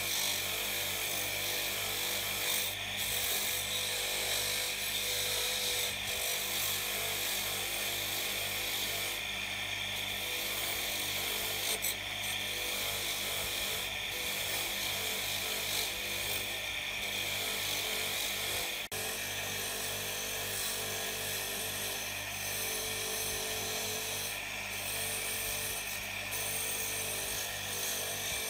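Electric motor running steadily with a wire brush wheel on its shaft, the wire bristles scrubbing against a metal housing held to it by hand to strip corrosion and old paint, over a steady motor hum.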